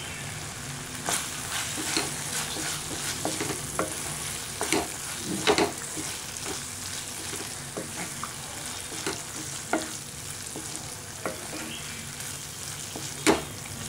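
Wooden spatula stirring and scraping thick tomato-onion masala around a sizzling non-stick pan, with irregular knocks of the spatula against the pan; one sharper knock comes near the end.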